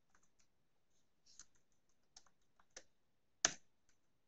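A few faint, irregular computer keyboard keystrokes, the loudest about three and a half seconds in.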